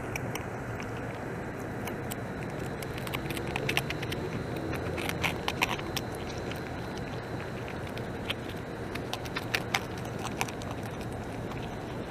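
A beaver gnawing bark off a log: irregular crunching clicks and cracks, coming in clusters, over a steady low background noise.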